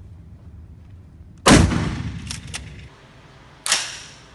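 Two gunshots about two seconds apart. The first is the louder, with a long fading echo and two quick clicks after it; the second is shorter.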